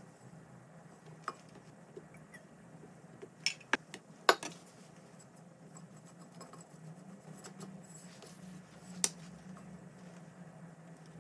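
Cake-decorating handling sounds: a metal offset spatula scooping and spreading whipped cream on a sponge layer, with a few sharp taps and clicks against the glass bowl and cake board, the loudest about four seconds in, over a low steady hum.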